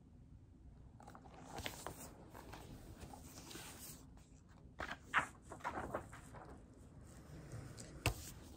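Pages of a large hardcover picture book being turned and handled: faint paper rustling with a few short flaps and taps, the loudest around five seconds in and just after eight seconds in.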